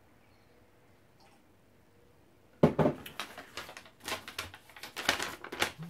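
Paper rustling and crackling as a folded sheet is pulled out and opened by hand, starting with a sharp rustle about two and a half seconds in after a near-silent stretch.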